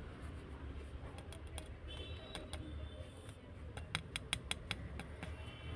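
A plastic spoon clicking and scraping against a steel plate of rice: scattered light clicks, then a quick run of about eight clicks about four seconds in, over a low steady hum.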